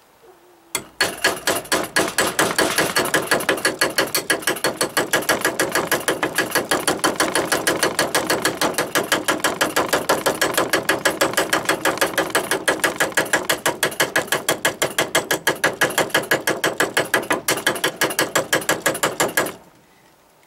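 Fast, steady metal-on-metal tapping: a Fiskars hatchet head striking the steel blade of a Cold Steel Bushman knife laid on a wooden block, cold forging a bent, rippled edge back straight. The tapping starts about a second in and stops shortly before the end.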